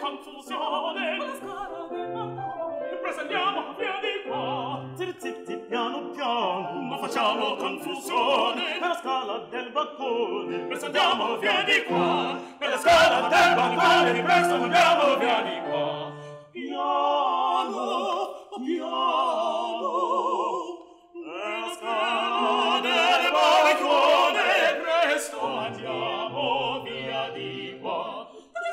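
Operatic ensemble singing by a woman and two men, with wide vibrato; the singing breaks off briefly about halfway through and again about two-thirds of the way in.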